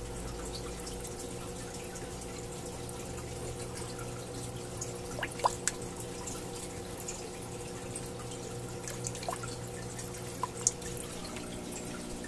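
Aquarium filter running: a steady hum with water trickling and dripping into the tank, and a few sharper drip plinks about halfway through and again near the end.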